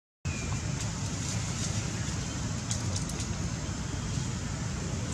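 Steady outdoor background noise, a low rumble under an even hiss, with a few faint ticks and rustles.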